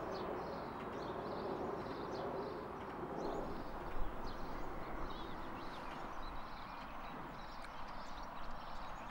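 Outdoor background ambience: a steady hiss with scattered small bird chirps throughout, and one short tap about four seconds in.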